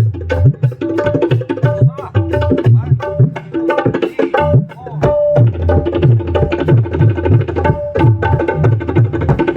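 Tabla played in a fast composition: rapid sharp strokes on the treble drum over deep, repeated bass-drum strokes, with a short pause a little under five seconds in. A repeating melodic line sounds underneath.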